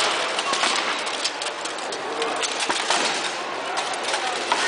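Armoured combat: swords and shields striking against each other and against steel plate armour in a string of sharp clanks and knocks, the loudest near the start and just before the end. Under them runs the steady murmur of a crowd in a large hall.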